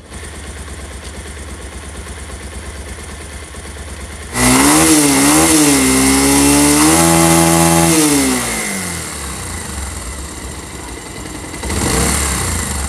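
Bajaj Pulsar motorcycle's single-cylinder engine idling, then revved about four seconds in: two quick blips, then held higher for a few seconds before dropping back to idle, with a short blip near the end. It runs without the jingling rattle of a loose timing chain or dry magneto-side bearings, now that the chain has been adjusted and the bearings oiled.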